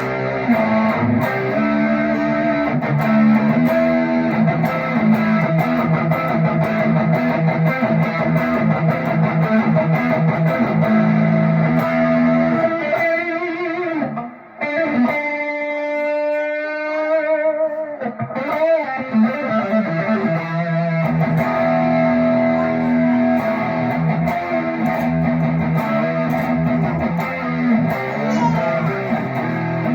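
Electric guitar, a Squier Classic Vibe '50s Stratocaster partscaster with Wilkinson pickups, played through an amp in a run of notes and chords. About halfway through it drops off briefly, then a held chord wavers in pitch for a few seconds before the playing picks up again.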